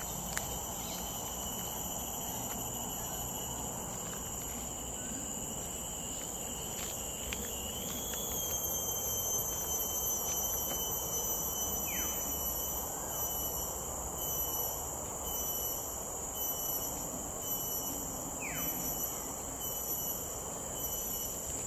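Insects buzzing steadily on several high pitches, the buzz turning to a regular pulsing about halfway through. Two short falling calls cut across it, about halfway through and near the end.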